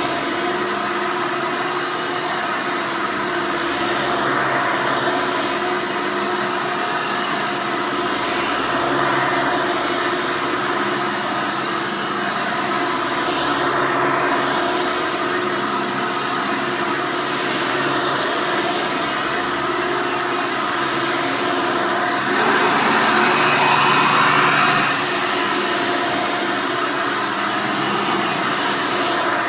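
Hoover Soft & Light upright vacuum's 7-amp direct-air motor running steadily: an even rush of air with a steady motor whine through it. It swells slightly every few seconds and is louder for a couple of seconds about three quarters of the way through.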